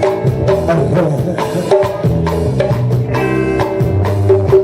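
Upbeat instrumental music with a steady drum-and-percussion beat and pitched instruments.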